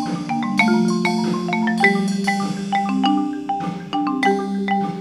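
Background music: a quick run of struck, ringing notes over held low notes.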